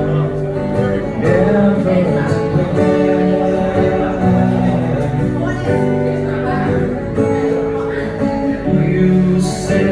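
Live acoustic guitar strummed and picked, with a voice singing over it.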